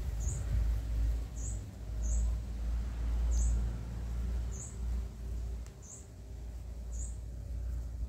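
A small bird chirping: seven single short high-pitched chirps, about one a second, over a steady low rumble.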